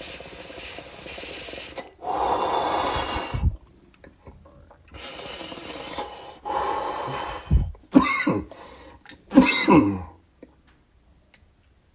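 A person taking long, heavy breaths in and out while smoking, then coughing in two short fits near the end.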